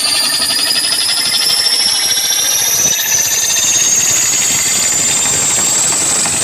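Electronic riser effect played through a DJ sound system: a high tone gliding slowly and steadily upward over a dense, rapidly pulsing buzz, as a build-up before the music drops in.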